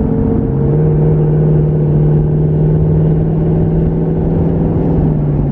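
Twin-turbocharged 5.0 L V8 of a 2019 Ford Mustang GT running at a steady light-throttle cruise, heard from inside the cabin as a steady engine drone. About half a second in it settles to a lower, steady note.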